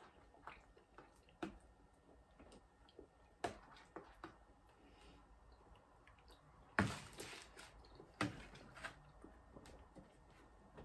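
Quiet eating sounds: a metal fork clicking and scraping in a foil tray of pasta bake, and chewing. Two louder knocks come about seven and eight seconds in.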